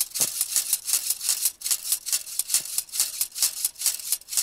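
Metal rods of a Bitty Big Q folding grill grate rattling and clacking against each other in quick strokes, about five a second, as the grate is worked back and forth to shake loose burnt-on grease and meat scraps.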